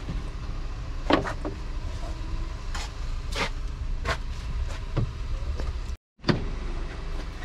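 A handful of sharp plastic clicks and knocks from handling the trim pieces and filter housing in a car's engine bay, over a steady low rumble. The sound cuts out completely for a moment near the end.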